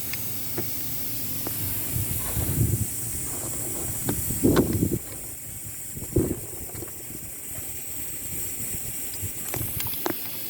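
A steady hiss with low rumbling underneath, broken by a few dull thumps, the loudest about halfway through, and some light clicks.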